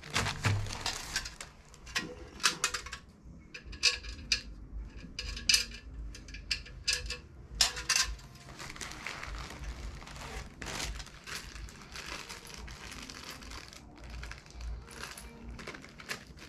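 Plastic bags, plastic wrap and foam packing peanuts rustling and crinkling as they are handled, with many scattered sharp clicks and small clatters in the first half, then steadier rustling.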